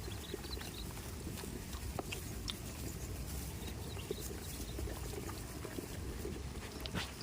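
Goats moving about, with scattered light clicks and knocks over a steady low rumble.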